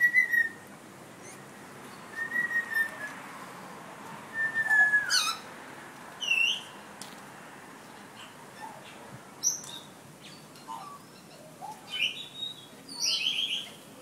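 A parrot whistling and calling: a few clear whistled notes, the third sliding down, then short sharp chirps, with a quick run of them near the end.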